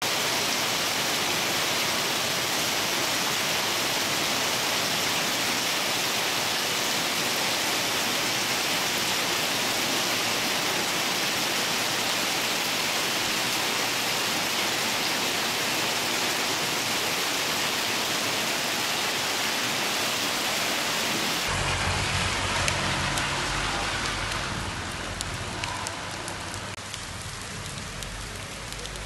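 Hailstones falling and pattering on a paved street in a dense, steady hiss. About three-quarters of the way through, the sound cuts to a quieter, lighter fall of hail and rain, with single stones ticking and a low rumble underneath.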